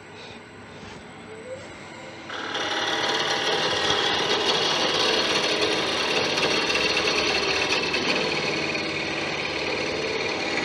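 Wood turning on a lathe: a hand-held chisel cutting the spinning wooden hat piece, a steady scraping cut that starts about two seconds in and carries on evenly.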